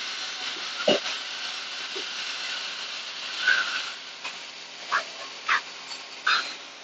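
Pneumatic spot welding machine at work: one sharp knock as the electrode comes down about a second in, a hiss of air, then three short squeaky bursts near the end, over a steady hiss.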